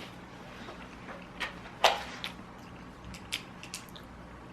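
A handful of sharp clicks and knocks, the loudest about two seconds in, over a low room hum.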